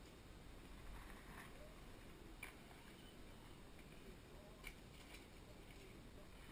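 Near silence, with faint handling noises of a Lego box and its contents being unpacked: soft rustling and a few small clicks, two sharper ones about two and a half and four and a half seconds in.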